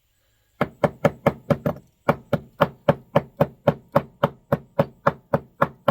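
Rapid, evenly spaced tapping on a stove's fuel valve, about four knocks a second, working the stuck stem and parts out. There is a brief pause after the first half-dozen knocks.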